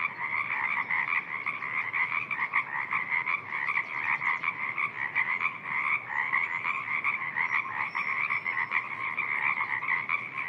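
Evening chorus of many frogs calling at once in a spring wetland, a dense, unbroken mass of rapid croaks.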